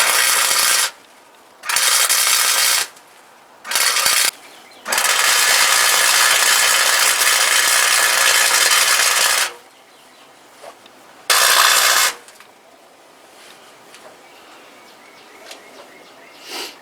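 Wire-feed welder laying welds on car floor-pan sheet metal: five bursts of steady crackling arc, starting and stopping sharply, one of them running about four and a half seconds and the rest about a second or shorter.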